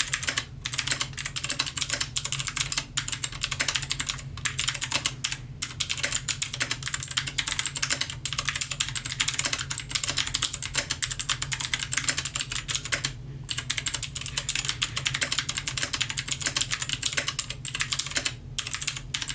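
Fast continuous typing on a Royal Kludge RK61 60% mechanical keyboard: rapid key clacks with a couple of brief pauses.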